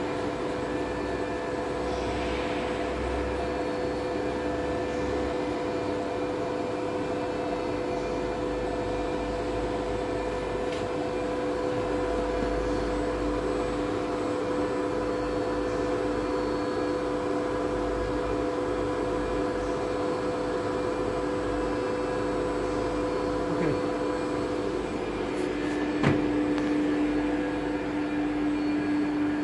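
Steady electric machine hum with two constant tones over a low rumble, from the running CNC router and shop machinery, with a sharp click about 26 seconds in.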